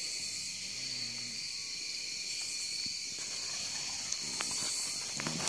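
Crickets chirring steadily in a night insect chorus, a high, even trill at two pitches. A few faint clicks come near the end.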